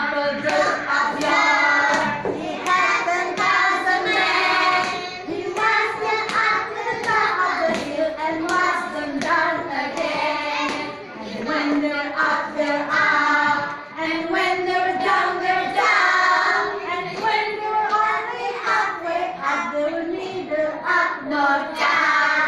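A group of young children singing a song together, with hand claps through it.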